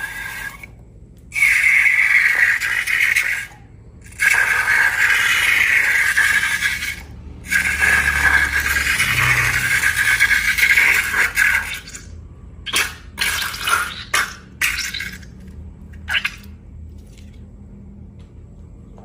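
Liquid pouring into a container in three long pours, then a handful of short, sharp splats or taps.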